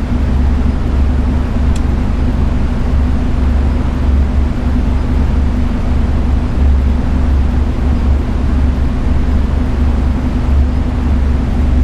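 Steady low drone of an idling car engine, with an even rushing noise over it. There is a single faint click about two seconds in.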